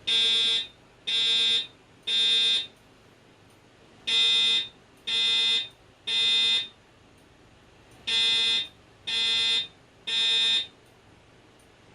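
Fire alarm voice-evacuation speaker sounding a buzzy horn tone in the temporal-three evacuation pattern: three short beeps about a second apart, then a pause, repeated three times. This is the evacuation signal sounded between voice announcements.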